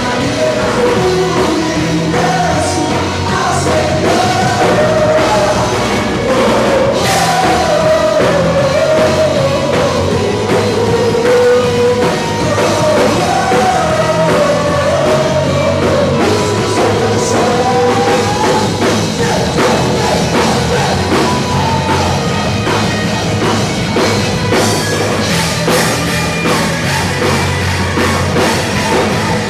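Rock worship band playing live, with a singer's melody over drums and guitars; the singing drops out about two-thirds of the way through, leaving the band playing on with the drums.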